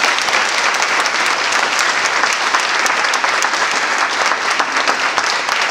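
Audience applauding, many hands clapping at once, steady throughout.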